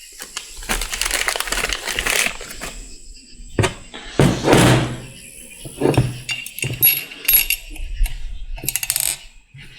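Small steel transmission valve-body parts being handled on a workbench: irregular light clinks and clicks with some rustling.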